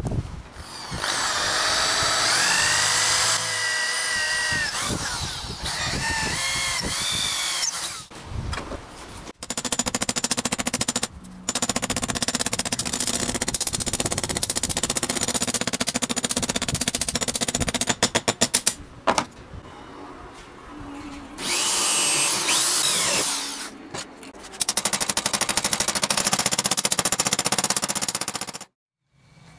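Metalworking on a galvanized sheet-metal cross: a power grinder runs in several long stretches, its pitch wavering as it bears on the metal. Between these come runs of quick hammer blows on steel, one rapid flurry about two thirds of the way in.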